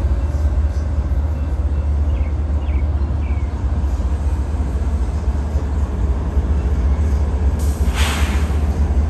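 Union Pacific diesel-electric locomotive rumbling steadily as it rolls slowly past, with a short hiss of air about eight seconds in.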